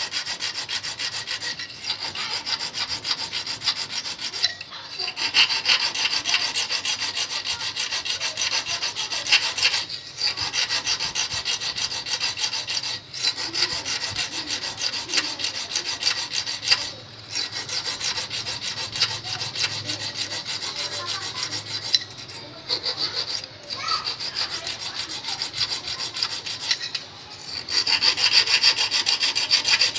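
Flat hand file rasping rapidly back and forth over a thin metal wire clamped in pliers, filing it down to form a fishing hook's point and barb. The strokes run in quick runs, broken by short pauses every few seconds.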